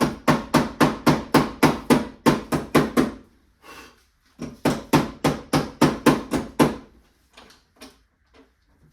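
Steady hammer taps on a car battery terminal clamp, about four a second, in two runs of roughly three and two and a half seconds, then a few lighter knocks. The clamp is being forced over a battery post that is larger than the one it was made for.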